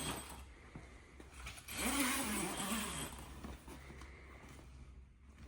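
Zipper on a golf cart enclosure's door panel being pulled open, once, about two seconds in, its pitch rising and falling with the speed of the pull.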